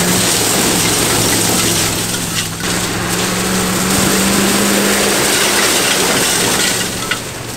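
Military Humvee's V8 diesel engine running steadily as the truck drives across a loose gravel bar, its big tyres crunching over the stones.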